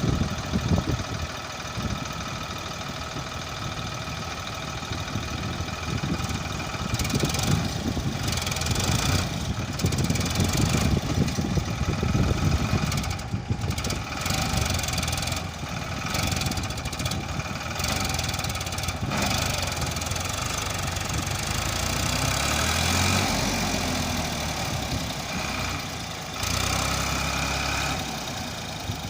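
Diesel engines of a backhoe loader and farm tractors running, the engine sound swelling and easing as the work goes on.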